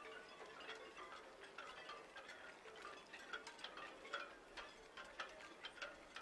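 Faint chime-like tinkling: many light, irregular pings with short ringing tails over a soft hiss.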